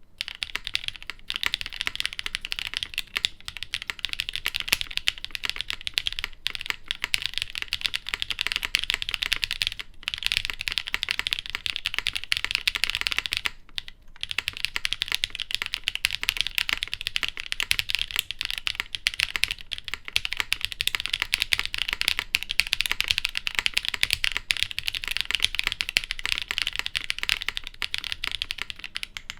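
Continuous fast typing on a plateless, weightless aluminium Martingale60 keyboard with lubed Leobog Kayking long-pole switches and GMK keycaps: a dense stream of keystrokes, with a short pause about thirteen and a half seconds in.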